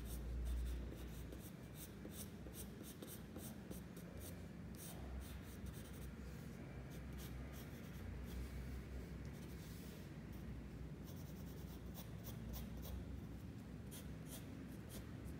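Graphite pencil scratching on paper in many quick, short strokes, shading and filling in a drawing of hair.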